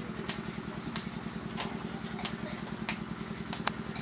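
An engine running steadily with a low, even throb, with sharp clicks every half second or so over it.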